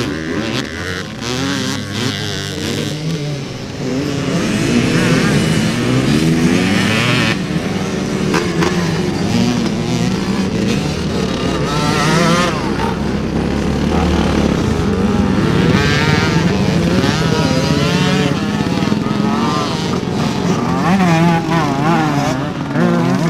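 Several classic motocross bikes revving hard, their engine notes rising and falling and overlapping as they ride through the mud.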